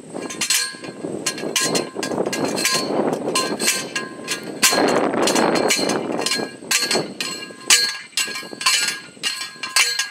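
Hand post driver slammed down again and again onto a steel T-post, each blow a sharp ringing metal clang, about two a second, with a short break near the middle.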